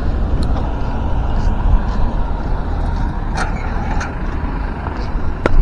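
Steady low rumble of road traffic, with a few sharp clicks, the loudest near the end.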